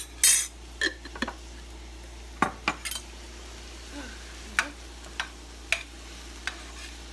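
Kitchen utensils clinking and knocking against pots and dishes: about a dozen irregular, separate strikes, with a short louder scrape or clatter near the start.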